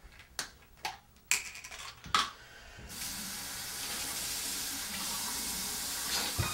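A few sharp clicks and knocks of small objects handled at a bathroom sink, then the tap is turned on about three seconds in and runs with a steady hiss.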